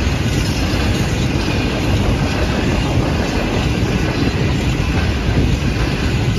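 Grain hopper wagons of a freight train rolling past, their steel wheels running steadily on the rails.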